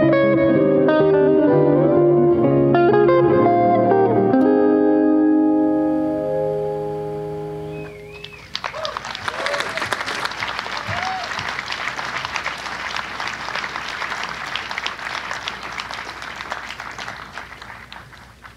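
Archtop hollow-body electric jazz guitar playing chords and melody notes, the last chord left ringing and dying away over a few seconds. About halfway through, the audience breaks into applause with a few short cheers, tailing off near the end.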